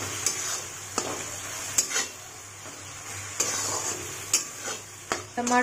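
A flat metal spatula scrapes and knocks against a metal kadhai while chopped tomatoes and onions are stirred in hot oil, with a gentle steady sizzle underneath. The clicks come irregularly, about one a second.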